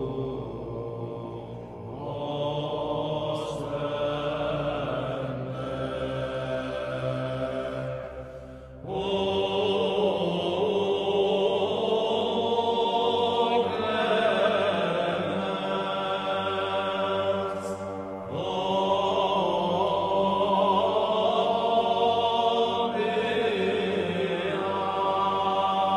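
Background music of slow, sustained chant-like singing, growing fuller and louder from about nine seconds in.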